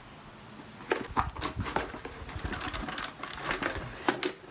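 A cardboard box being opened by hand and a plastic target base slid out of it: a run of rustles, scrapes and light knocks starting about a second in.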